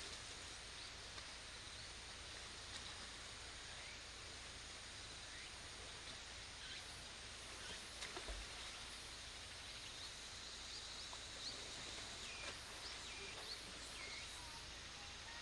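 Faint outdoor ambience: a steady hiss with scattered short high chirps, and a brief cluster of soft knocks about eight seconds in.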